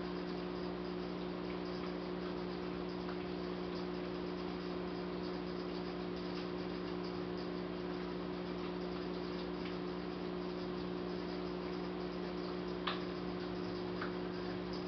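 Steady low hum made of a few constant tones over an even hiss, with a faint click or two near the end.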